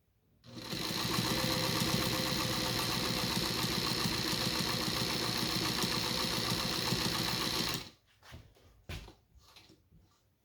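New Home Paragon SKY straight-stitch sewing machine running steadily, sewing a test seam at about 12 stitches per inch. It starts about half a second in and stops after about seven seconds.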